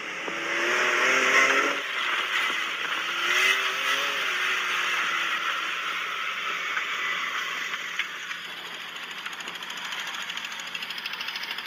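Side-by-side UTV engine running hard while driving on sand. Its pitch climbs twice in the first few seconds as it accelerates, over a steady rushing noise.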